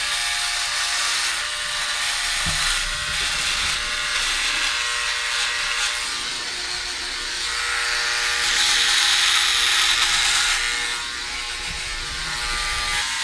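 Electric body shaver running steadily as it cuts through beard stubble, a constant motor hum under a buzzing hiss. For about two seconds past the middle it grows louder, where it goes through the thickest part of the beard.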